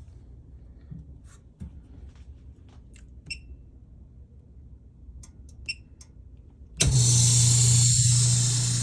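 Faint clicks and taps, then about seven seconds in a screen-refurbishing machine starts abruptly and runs with a loud steady hum and hiss.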